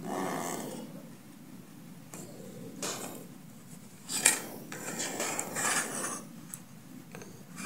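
Handling noise as the meter's circuit board is moved about on the bench: light rustles and scrapes, with a sharp click a little past four seconds in.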